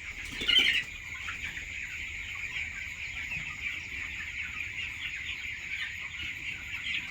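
A large flock of poultry-farm chickens calling all at once: a dense, steady chorus of clucking and peeping, with a louder burst of calls about half a second in.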